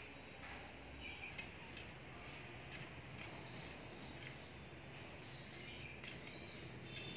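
Small hand hoe chopping into and scraping garden soil, a short stroke every half second or so.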